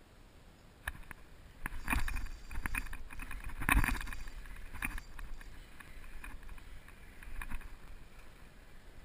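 Kayak being paddled: the paddle blades dip and splash through the water in a run of strokes, with a few sharp clicks, loudest about two and four seconds in.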